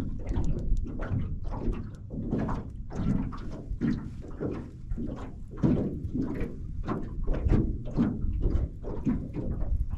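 Small waves slapping against the hull of a metal fishing boat in quick, irregular knocks about twice a second, with a low rumble of wind on the microphone.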